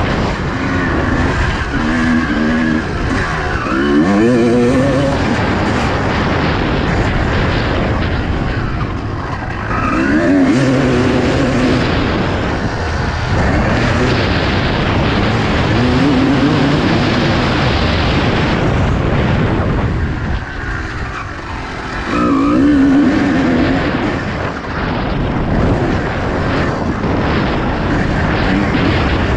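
Motocross bike engine heard from on the bike, its revs climbing and dropping back several times as the rider accelerates out of turns and shifts, over a constant rushing noise.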